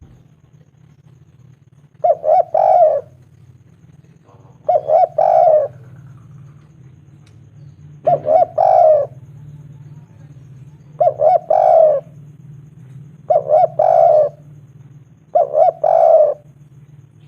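Spotted dove (tekukur) cooing in six repeated three-note phrases, two short coos then a longer one, every two to three seconds. A steady low hum runs underneath.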